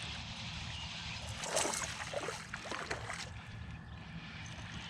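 Water sloshing and lapping against a fishing boat over a steady low hum, with a brief cluster of louder splashy knocks about a second and a half in.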